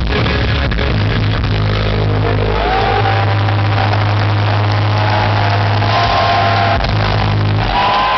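Loud live rock concert sound from the arena PA: a steady low rumbling drone, with sliding high tones that dip and rise coming in about two and a half seconds in.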